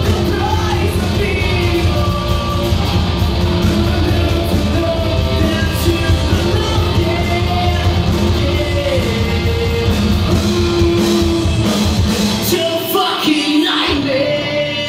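Live rock band playing: a lead singer over drums, bass, electric guitars and keyboard. Near the end the bass and drums drop out for about a second while the voice carries on.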